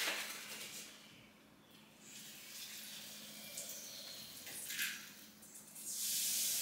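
Kitchen faucet turned on near the end, water running steadily into a stainless-steel sink, after a few seconds of faint handling knocks.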